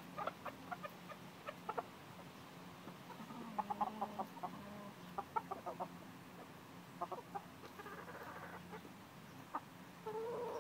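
Chickens clucking in short, repeated calls, with a denser run of calls partway through and a louder call near the end.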